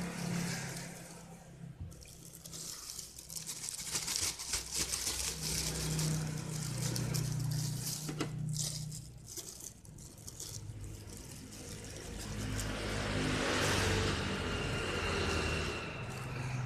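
Thin clear plastic bag crinkling and rustling as lettuce leaves are handled and pulled out, with a dense run of crackles in the middle and a louder rustle near the end. A low hum sits underneath.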